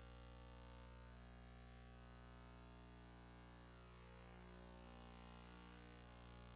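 Steady low electrical hum with a few fixed overtones, unchanging throughout, with no game sounds or voices over it.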